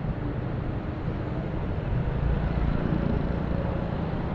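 City street traffic: a steady rumble of passing cars and other vehicles, swelling a little midway.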